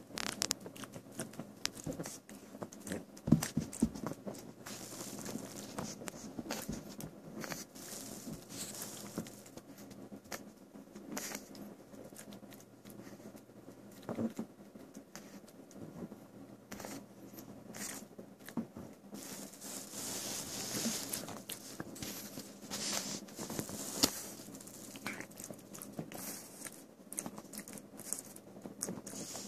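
A pug chewing and tearing at loose cotton stuffing from a soft toy: irregular small clicks of jaws and teeth with rasping, fibrous tearing noises, and a couple of louder snaps.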